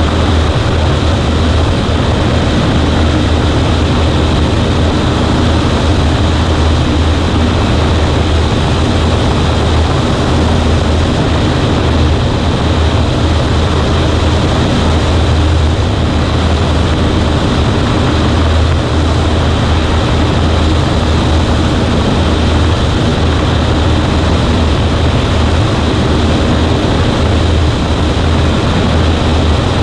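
Cessna 140A light plane's piston engine and propeller running at a steady setting: a loud, even, low drone with no change in pitch.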